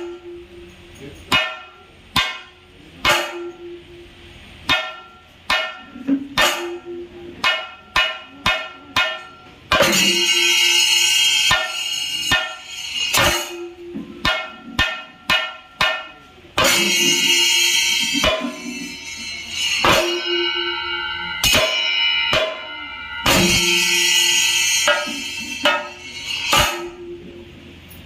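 Thayambaka drumming: chenda drums struck with sticks, sharp single strokes at an uneven, free pace. About ten seconds in, again around seventeen seconds, and near the end, the full ensemble joins in a loud, dense roll with ringing ilathalam cymbals.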